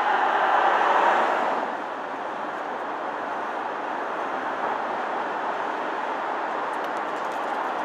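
Ford Mustang Mach 1 driving, heard as an even rush of tyre and road noise with no clear engine note. It is louder for the first second and a half, then drops to a steady, quieter run.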